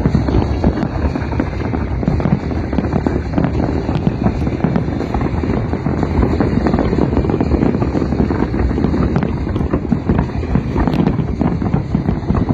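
Fireworks display: many rapid bangs and crackles running together into a continuous, heavy barrage without a break.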